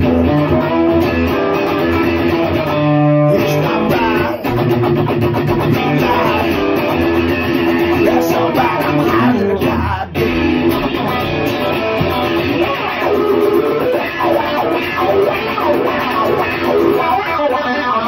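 Music with guitar playing throughout, dipping briefly about ten seconds in.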